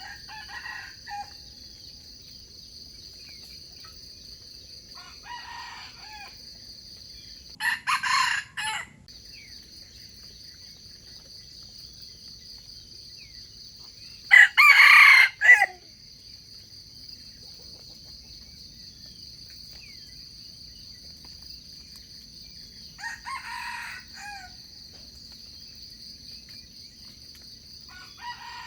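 Wild chicken roosters crowing in turn, six short crows over the stretch: the loudest about halfway through and a strong one about 8 seconds in, the rest fainter and further off, as birds answer one another. A steady high drone of insects runs underneath.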